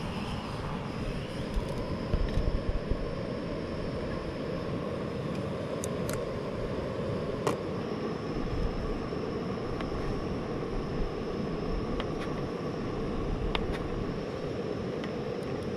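Gas burner of a Trangia stove running steadily, a continuous rushing hiss. A few light clicks from a knife cutting sausage on a plastic board.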